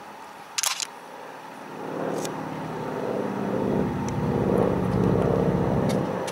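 A short sharp click about half a second in, then the Spitfire Mk XVI's Packard Merlin V12 being turned over on its starter, the propeller swinging round: a rhythmic mechanical sound that grows steadily louder from about two seconds in as the engine starts.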